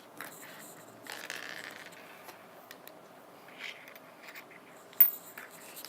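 A fidget spinner being handled and spun on a tabletop: light scraping with scattered small clicks, and one sharp click about five seconds in.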